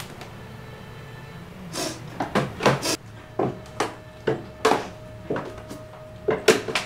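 Low steady room hum, then from about two seconds in a run of sharp wooden knocks, roughly two a second and uneven, with a held musical note coming in about halfway.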